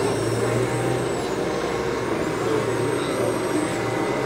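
Radio-controlled model truck running: a steady low engine-like drone, strongest in the first second or so, with a faint high whine that rises and falls.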